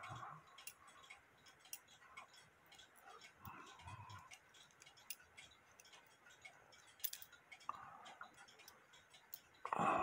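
Small, faint metallic clicks from the levers and wheels of a Hubert Herr cuckoo clock movement being worked by hand, at irregular intervals, with a louder knock and rustle of handling near the end.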